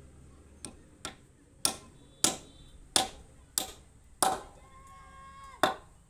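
Hammer blows on wood during joinery work: about eight sharp strikes at a steady pace, roughly one every half second or so, the first two lighter and the rest hard, each with a short ring.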